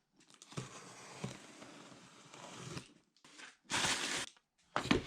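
Short bursts of rustling handling noise with a few sharp knocks, each cutting off abruptly with brief silences between.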